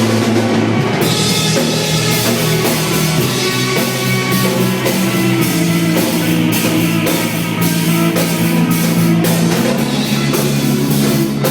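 Church worship band playing a rock-style song at a sound check, drums keeping a steady beat under sustained instrument chords.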